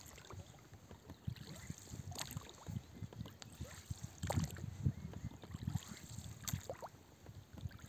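Small boat drifting on calm water: water lapping against the hull, with a low uneven rumble and a few light knocks.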